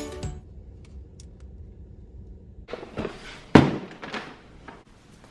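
Quiet room tone, then from about three seconds in a few knocks and thuds, one sharp thump louder than the rest and smaller taps after it.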